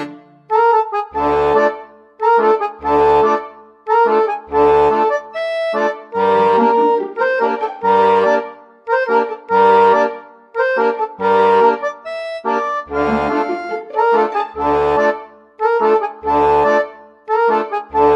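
Instrumental background music with a steady, bouncy beat: short pulsed chords, with a low bass note about every second and a half.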